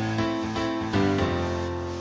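Instrumental background music: sustained chords struck about once a second, each slowly fading.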